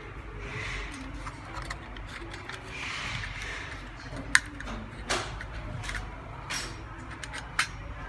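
Handling noise from a wireless doorbell's plastic housing and circuit board: soft rustling and light taps, then several sharp plastic clicks in the second half, the loudest about four seconds in.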